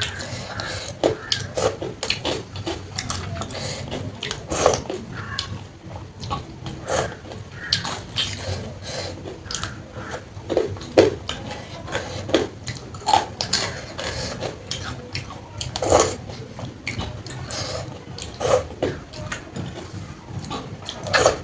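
Close-up eating sounds: a person chewing mouthfuls of panta bhat (water-soaked rice) and side dishes, with many irregular wet smacks and clicks.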